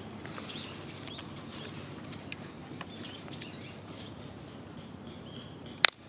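Disposable wooden chopsticks burning, crackling with scattered small pops, and one loud sharp pop near the end.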